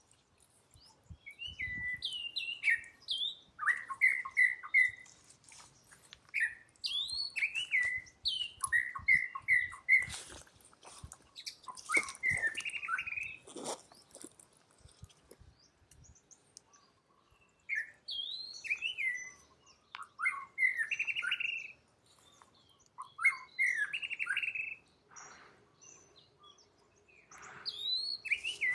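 High-pitched chirping animal calls in short bursts of several quick notes, coming in clusters with pauses between them, mixed with a few knocks and rustles.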